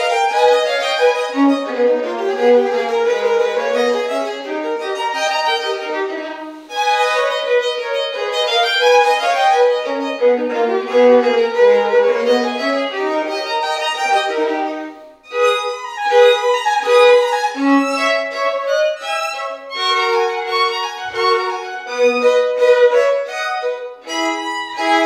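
Two violins playing a Baroque duet, with quick running passages. The playing breaks off briefly about six seconds in and again about fifteen seconds in; after that the notes are shorter and more detached.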